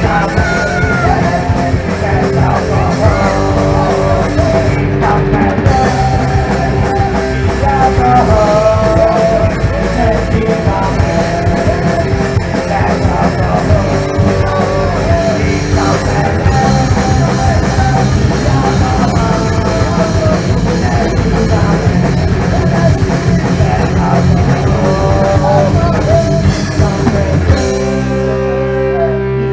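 Punk rock band playing live: distorted electric guitar, bass and drum kit with sung vocals. Near the end the drums drop out, leaving held guitar and bass notes.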